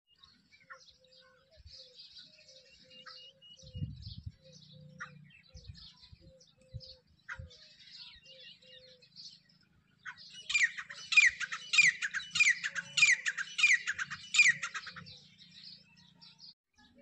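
Grey francolin (the Indian grey partridge, teetar) calling: a loud run of about seven repeated notes, a little over half a second apart, starting about ten seconds in and lasting some five seconds. Before it there are only faint chirps of small birds.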